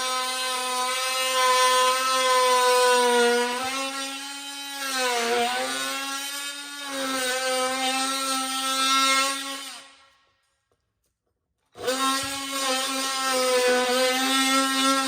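Power tool motor whining at a steady pitch, dipping in pitch twice as it bogs under load while cutting. It cuts out about ten seconds in and runs again nearly two seconds later.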